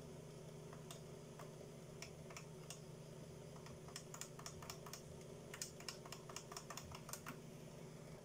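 Faint, irregular clicking of the Changhong L24G3A LED TV's side push-buttons being pressed over and over, the clicks coming quicker from about halfway through, over a low steady hum.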